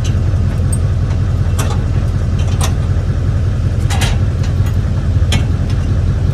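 Pickup truck engine idling steadily with a low rumble, while sharp metal clinks from hitching a trailer sound about four times.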